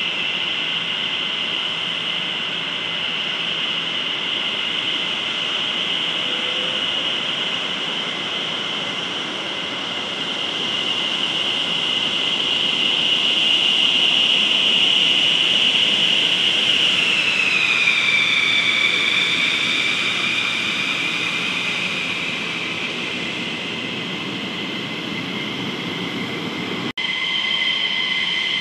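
F-15E Strike Eagle's twin jet engines whining at low taxi power, growing louder toward the middle and then dropping in pitch about two-thirds of the way through. Near the end the sound cuts abruptly to another jet's steady whine.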